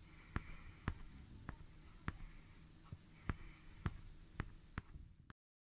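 Sharp clicks at a fairly even pace, roughly two a second, over a faint low rumble. The sound cuts off abruptly near the end.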